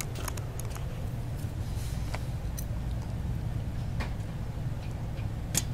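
A steady low hum with a few faint, sharp clicks scattered through it.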